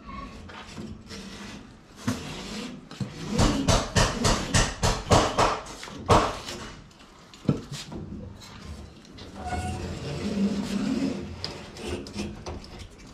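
A quick series of short scraping strokes, about five a second, then a single sharp click: a knife trimming the excess fly-screen mesh along the edge of the frame.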